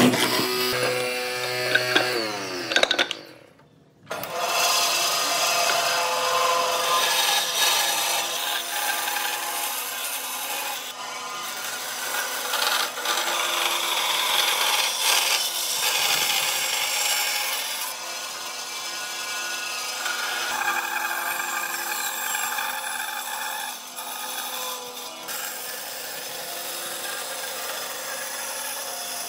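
A hollow-chisel mortiser's chisel chops into a wooden board for about three seconds. After a short break, a bandsaw saws a long curved cut through a hardwood chair part, which makes a steady rasping noise.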